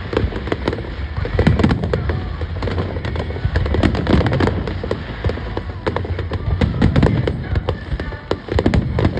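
Aerial fireworks display firing a dense, continuous barrage of rapid bangs and crackling reports over a low rumble.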